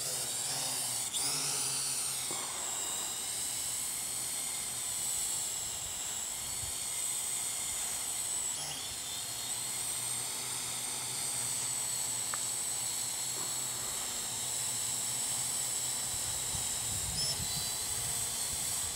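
A small electric drone's motors and propellers give a steady high-pitched whine, its pitch wavering slightly as the aircraft flies.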